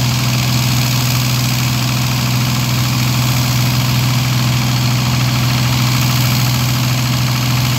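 An engine running steadily at idle: a constant low drone that does not change in speed or loudness.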